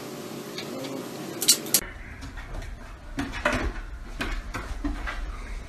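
A steady hum broken by two sharp clicks, then, after a cut, a golden retriever's claws clicking and paws knocking on wooden stairs as it steps down, over a low rumble.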